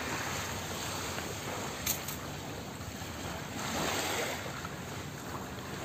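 Small waves washing onto a sandy shore, with wind noise on the microphone; the wash swells briefly about four seconds in, and there is one short click about two seconds in.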